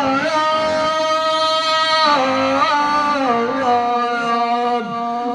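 Male reciter singing a mournful Shia lament (nai) unaccompanied. He draws one long melismatic phrase out, holding the notes and sliding between pitches, and a word comes in near the end.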